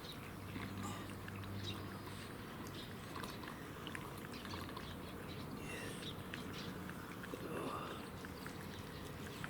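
Cats eating, with small scattered clicks and rustles over a low steady hum; a brief animal call rises about three-quarters of the way through.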